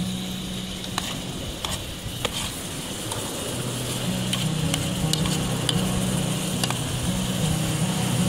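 Food simmering and sizzling in a metal pot on a camping stove, with a metal spoon stirring and clinking against the pot several times. Low background music with held notes underneath.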